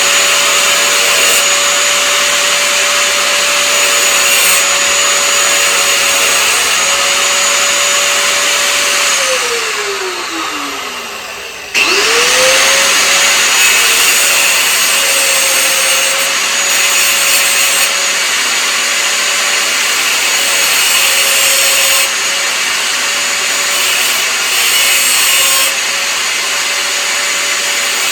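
Electric power tool motor running at a steady high whine, winding down and coasting to a stop over a couple of seconds near the middle, then spinning straight back up and running on.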